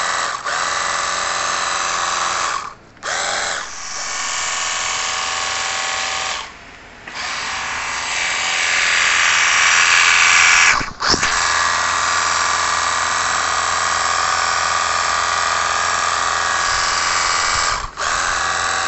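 Cordless battery-powered pressure washer running, its small electric motor and pump whining steadily under the hiss of the water jet on concrete. It cuts out briefly several times and starts again.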